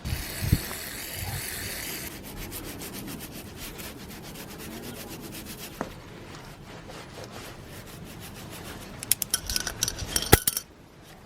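Hand rubbing or scrubbing strokes on a brush cutter part being cleaned: a hissing scrape, then a quick, even run of strokes, then a few sharp clicks and clinks near the end.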